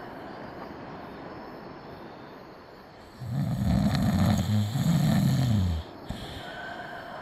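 A man snoring: one long, low snore beginning about three seconds in and lasting over two seconds, over a steady faint hiss.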